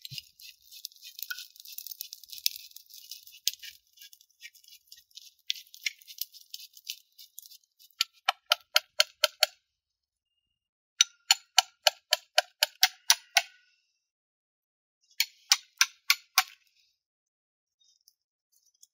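A brush scratching ash off a baked salt crust, then a hammer tapping a knife into the hard salt crust to crack it open. The tapping comes in three quick runs of strikes, about five a second, each a short metallic clink.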